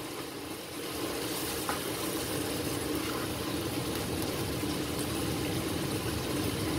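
Broth with chicken and meatballs simmering steadily in a pot, with a spatula stirring through it in the second half.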